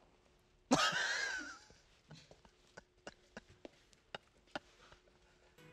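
A short breathy noise with a wavering pitch about a second in, then a run of light, separate clicks and snips: kitchen scissors cutting into food in a silicone mold.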